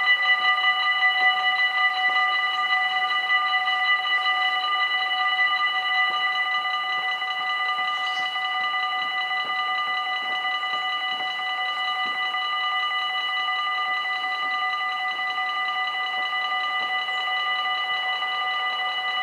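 Level-crossing warning bells ringing steadily with a fast, even clatter of strikes, signalling that the crossing is closing for an approaching train. They become a little quieter and steadier about seven seconds in.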